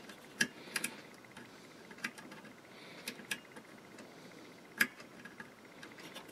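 About half a dozen light, irregular metallic clicks and taps, the loudest nearly five seconds in: female spade connectors, squeezed tighter because they were too loose, being pushed onto their terminal tabs on an inverter board.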